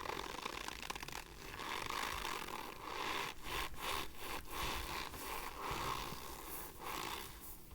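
Argo cornstarch crunching and squeaking as it is pressed and rubbed, in a run of repeated grinding swells about once a second.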